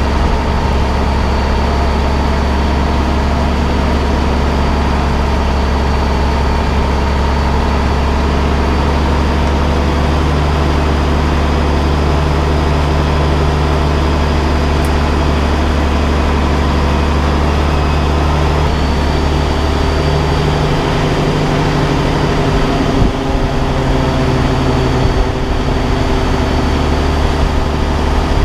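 Heavy truck's diesel engine running steadily at low speed, a deep even drone. About twenty seconds in its lowest note eases off, and a few short knocks and rattles come through near the end.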